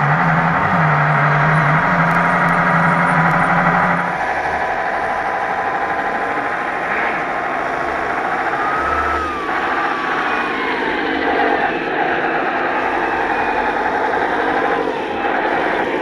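Simulated air-cooled diesel V8 of an RC Tatra 130 model truck, played through its onboard sound unit's speaker: engine running with howling cooling fans. It is louder with a strong steady hum for about the first four seconds, then quieter, with a whine that slides up and down in pitch.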